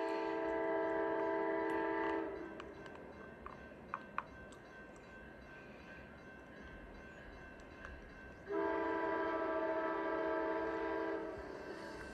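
Amtrak P42DC locomotive's multi-note chord horn sounding two long blasts, about six seconds apart, with the steady noise of the moving train between them.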